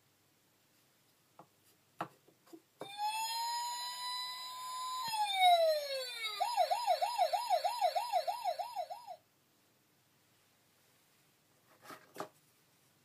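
Melissa & Doug wooden Vehicles sound puzzle playing its ambulance siren sound through a small built-in speaker when the ambulance piece is set into its slot: a tone that rises and then glides down, followed by a fast up-and-down wail about three times a second, cutting off after about six seconds. Light wooden clacks of the piece come just before the siren and again near the end.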